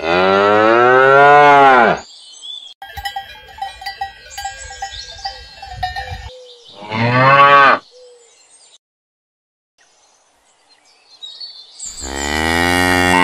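Cattle mooing: three long moos, the first about two seconds long at the start, a shorter one around the middle, and another starting near the end. Quieter clattering and ringing tones sound between the first two moos.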